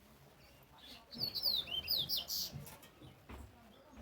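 Double-collared seedeater (coleiro) singing: a quick run of short, high, sliding whistled notes starting about a second in and lasting about a second and a half.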